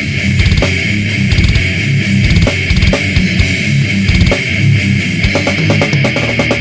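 Loud music with a pounding beat of low bass thumps.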